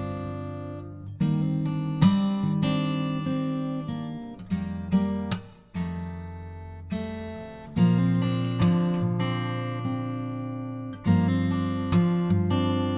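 Background music: an acoustic guitar strumming chords without vocals, each strum ringing out and fading before the next.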